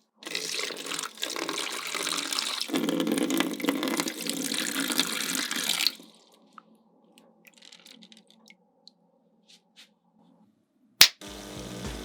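Water pouring in a steady stream for about six seconds, then stopping, followed by faint scattered drips or ticks and one sharp click near the end.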